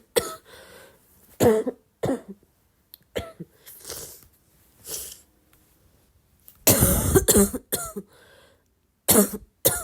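A person coughing: single short coughs every second or so, then a run of several coughs in quick succession about seven seconds in, and a quick pair near the end.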